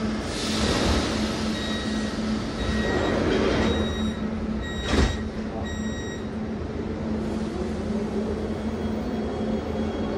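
Inside a Siemens Inspiro metro train: the steady low hum and rumble of the running car. A hiss comes near the start, thin high whining tones come and go, and there is one sharp knock about five seconds in.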